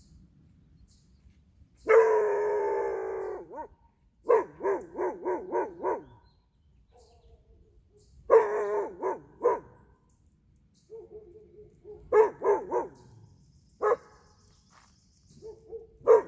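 Husky puppy vocalising in bursts: one long howl-like call about two seconds in, then several runs of quick barks, four to six at a time, with a few single short calls between.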